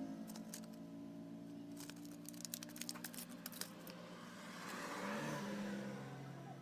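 A restored 100cc single-cylinder four-stroke motorcycle engine idling steadily after being revved, with a few light clicks in the middle. About five seconds in its pitch shifts briefly before it settles at a lower idle.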